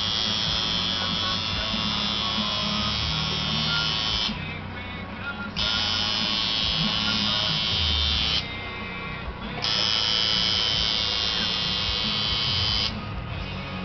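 Coil tattoo machine buzzing steadily as it shades a tattoo, in runs of about three to four seconds with short pauses between them. Music plays underneath throughout.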